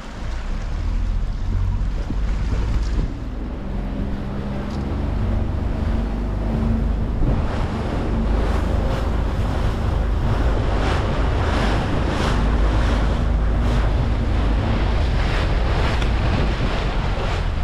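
Motorboat under way: a steady low engine drone, with wind buffeting the microphone and water rushing and splashing against the hull. The splashes come more often from about halfway through.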